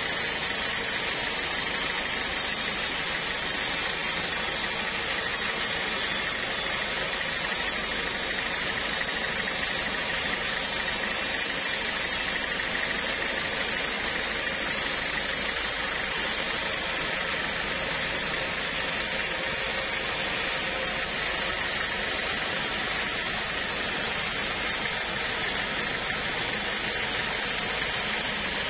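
Portable band sawmill running, its blade sawing lengthwise through a teak log: a steady, even machine noise with no breaks.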